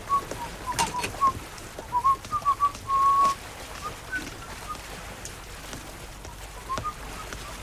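A man whistling a tune as he walks: a run of short notes with a few held ones, growing sparse about halfway through.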